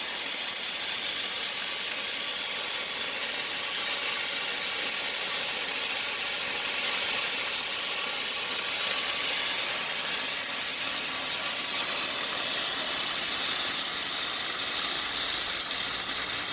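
Gas cutting torch burning with a steady hiss.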